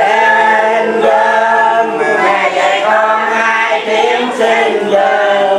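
A group of men and women singing a Vietnamese Catholic hymn to the Virgin Mary together, in long held notes.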